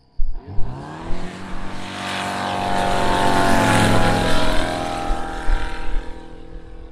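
Kitfox light bush plane's piston engine and propeller flying low past, the engine note rising in pitch over the first second or so as it comes on, loudest as it passes overhead about four seconds in, then fading as it climbs away.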